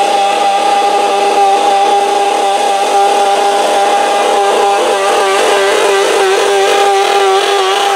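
Modified garden tractor engine running hard at high revs while pulling a weight-transfer sled. The pitch holds steady at first, then wobbles up and down through the second half.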